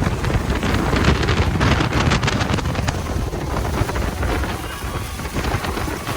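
Wind buffeting the microphone on a jet boat under way, over the boat's steady running noise; a little louder in the first few seconds.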